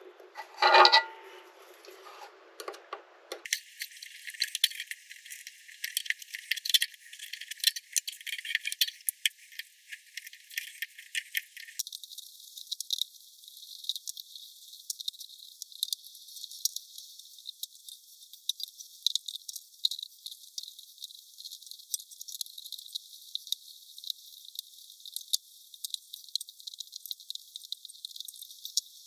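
Small metal clinks, taps and rattles from handling the Triton thickness planer's cutter block, blade and clamp parts during a blade change. There is one louder ringing clink about a second in, then scattered light clicks.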